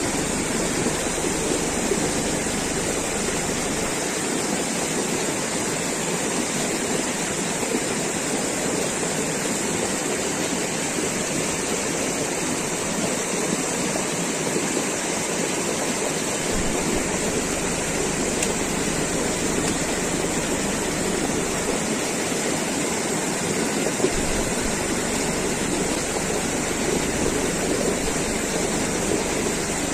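Swollen, muddy river rushing over rock ledges: a steady, unbroken sound of fast white water.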